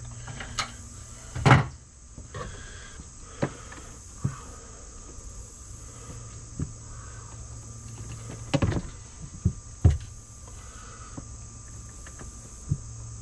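Clicks and knocks of a hand tool and wiring being handled inside a wooden cabinet, scattered and irregular, with a loud knock about a second and a half in and a few more a little past the middle, over a steady high hiss.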